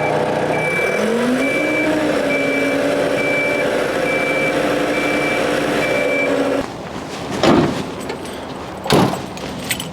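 Genie lift's engine running, its speed rising about a second in and then holding steady, while a warning alarm beeps at an even rate of roughly one beep every three-quarters of a second. Both cut off together a little past halfway through, and two sharp knocks follow.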